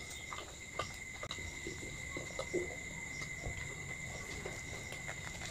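Faint eating sounds: chewing, soft clicks and small rustles from handling food and a paper-wrapped egg roll, over a steady high-pitched whine.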